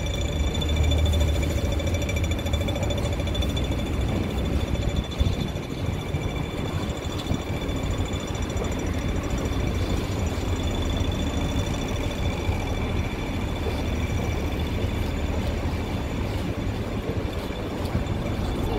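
City street traffic noise, a steady low rumble, with thin steady high-pitched tones running through it.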